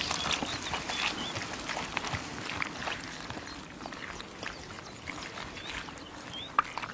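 Wild boar wallowing in a mud puddle: irregular wet squelches and splashes of mud and water.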